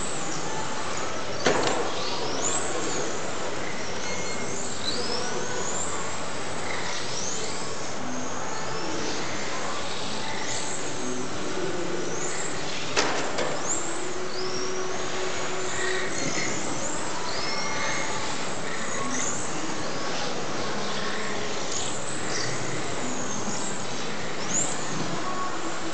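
Several electric radio-controlled cars racing round an indoor track: high-pitched motor whines rise and fall over and over as they accelerate and brake, over a steady hiss of tyres. A couple of sharp knocks stand out, one about a second and a half in and another about halfway through.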